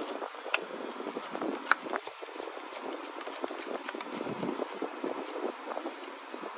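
Small ratchet and socket clicking irregularly as the throttle body's hose clamp screw is loosened, over a steady background hiss.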